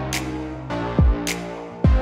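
Electronic background music with a steady beat: deep kick drums and sharp snare-like hits over held synth tones.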